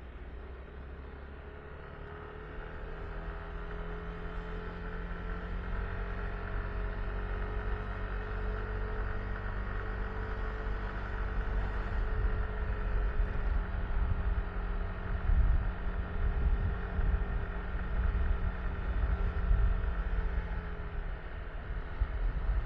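Yamaha Tricity 155 scooter's 155 cc single-cylinder engine running steadily while riding, with a steady whine over it. Wind buffets the microphone in gusts, strongest in the second half.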